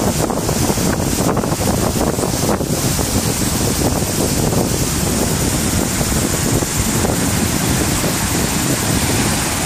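Fast whitewater of the Waikato River rushing through the rapids and falls at Huka Falls: a loud, steady rush of water.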